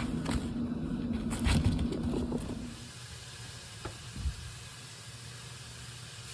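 Background music with a held note that stops about three seconds in, leaving a faint rustling hiss with a couple of soft clicks.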